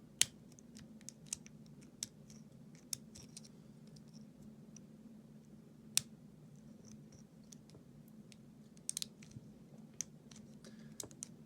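Hook pick and tension wrench working the pins of an American 1100 padlock, giving faint, irregular sharp metallic clicks as the pins are tapped. The loudest clicks come about a quarter second in and at six seconds, with a quick cluster of three near nine seconds, over a low steady hum.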